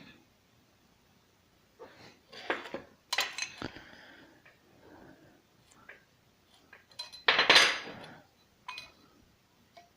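Small forged steel hinge pieces and marking tools clinking and knocking as they are handled and set down on a bench, at irregular intervals, with a louder clatter about seven seconds in.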